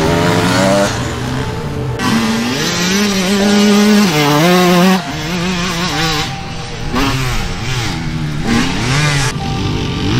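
Enduro dirt bike engines revving, rising and falling in pitch as riders accelerate and shift, in several passes joined by abrupt cuts, with music underneath.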